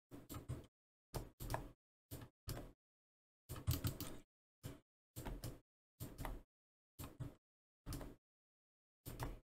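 About a dozen short knocks and clicks from mouse and desk handling, each a brief burst with dead silence between.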